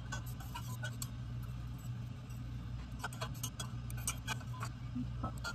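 Light, scattered clicks and clinks of a small glass tank and other glassware being handled, over a steady low hum.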